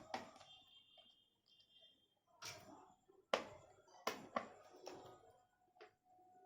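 Faint, sharp clicks and taps, about seven in all, from screws being undone from the plastic bottom case of an HP 15-ac120tx laptop, the screwdriver and screws knocking against the case.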